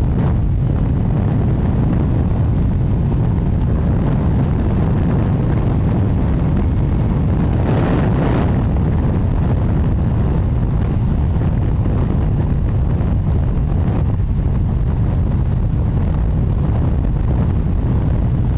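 Steady wind rumble on the microphone of a Kawasaki Ninja 650 motorcycle riding at expressway speed, with engine and road noise mixed in. A brief louder rush comes about eight seconds in.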